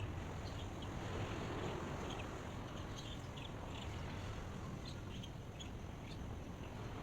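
Steady outdoor rush of wind or water with small birds chirping, many short high chirps scattered throughout.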